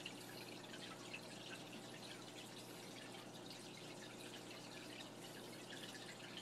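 Faint aquarium water trickling and dripping, many small irregular drips, over a low steady hum.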